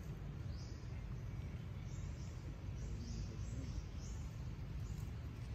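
Outdoor ambience: a steady low rumble with a series of short, high chirps from a small calling animal, coming irregularly, a few a second at times.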